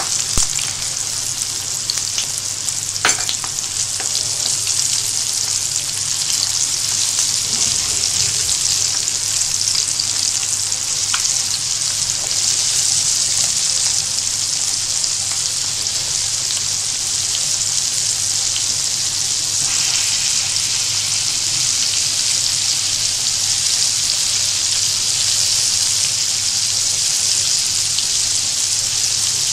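Coated chicken pieces deep-frying in hot oil: a steady, loud sizzle with a couple of light clicks.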